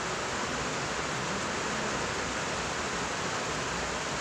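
Steady rushing noise of an electric fan blowing, even and unchanging throughout.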